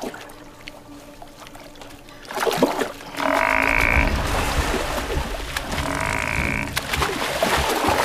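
Water splashing in a shallow stream as a dying water buffalo thrashes its head, starting suddenly about two seconds in and going on heavily. Three times a drawn-out droning tone, under a second each, sounds over the splashing.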